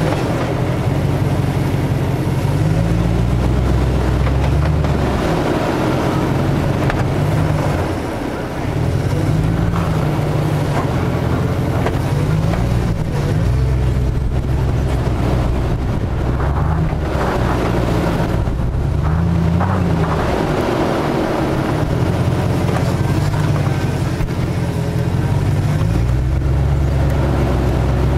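Jeep Grand Cherokee WJ engine working under load as it crawls over a steep dirt hump off-road, its revs rising and falling repeatedly and easing off briefly about eight seconds in.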